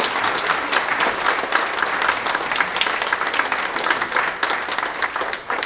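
Congregation applauding, many hands clapping together, starting to die down near the end.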